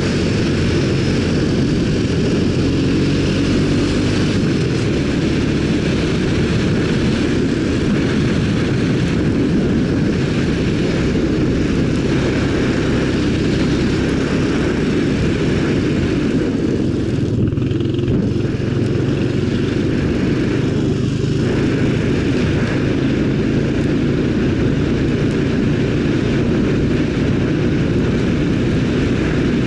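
ATV engine running at a steady pace under way, a loud, even low drone that barely changes.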